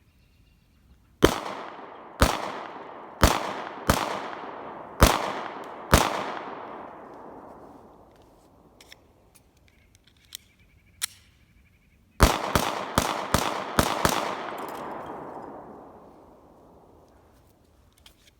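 Glock 43 9mm pistol firing: six shots about a second apart, then after a pause a fast string of about seven shots, each crack followed by a rolling echo. Two light clicks sound in the pause between the strings.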